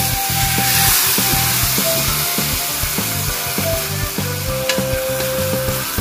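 Sauce hitting a hot wok of vegetables and sizzling, the hiss strongest about a second in and then easing. Near the end a wooden spatula starts stirring, with a few sharp clicks against the wok.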